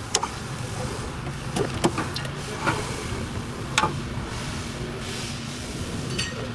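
A handful of short, sharp clicks and knocks, scattered and irregular, over a steady low hum.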